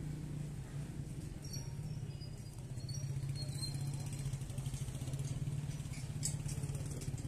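Street traffic: a steady, fluttering engine hum from vehicles on the road, with a few short high chirps between about one and a half and three and a half seconds in, and a brief sharp click near the end.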